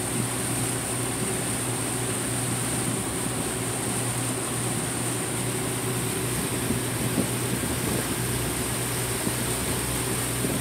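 A Carver motor yacht's engines running steadily under way, a constant low drone with water and wind noise.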